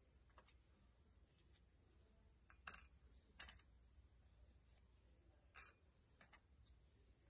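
A few faint, sharp clicks of wooden clothespins being unclipped and set down in a glass bowl, spaced a second or more apart, with two louder ones a little before the third second and past the fifth.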